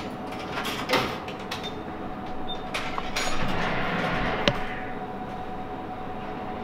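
Drinks vending machine being worked: scattered clicks and knocks over a steady hum, and about three seconds in, a second and a half of whirring that ends in a sharp knock.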